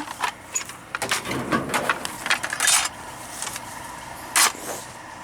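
Clatter and rustling of junk and plastic trash being handled, with scattered small knocks and one sharp clunk about four seconds in.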